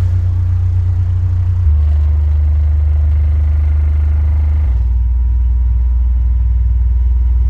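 Subwoofer playing loud, deep bass notes at high cone excursion. The pitch steps lower twice, with a faint buzz over the bass.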